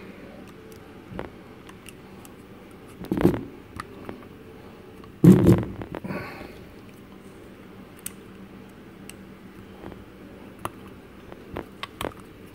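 Hard plastic parts clicking and scraping as a plastic indicator cover is handled and fitted onto a limit-switch sensor box, with two louder bumps about three and five seconds in. A steady low hum runs underneath.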